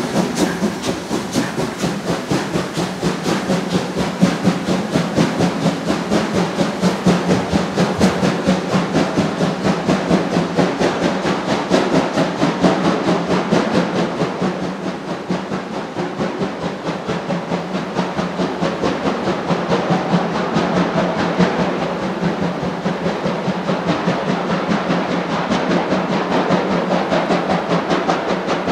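A DB class 41 two-cylinder steam locomotive hauling a heavy freight train, its exhaust going in quick, even, rhythmic chuffs with hiss of steam: the engine is working hard under load.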